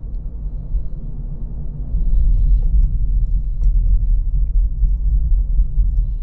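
Low, steady rumble of a car being driven, engine and road noise heard from inside the cabin, getting louder about two seconds in.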